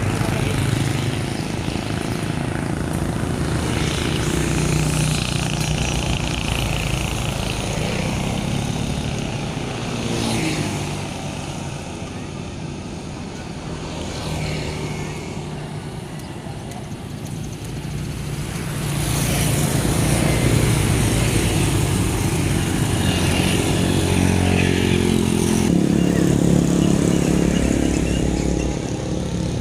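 Motor vehicle engines running close by, swelling and fading as vehicles pass. They are louder over the second half.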